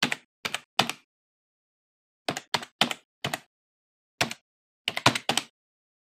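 Computer keyboard keystroke clicks, about a dozen single keys struck in three uneven runs with pauses between, typing out a title letter by letter.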